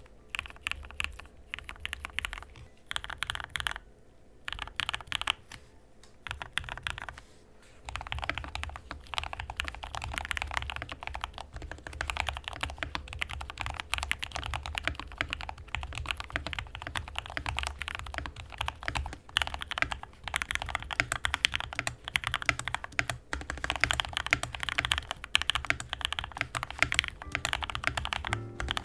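Typing on a tape-modded Yunzii KC-68 mechanical keyboard with Gateron linear switches, Yellows and Silvers compared. Keystrokes come in short bursts with pauses for the first several seconds, then turn into continuous fast typing.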